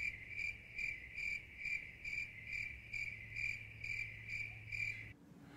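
A cricket chirping steadily, a little over two chirps a second, over a faint low hum; both cut off suddenly about five seconds in.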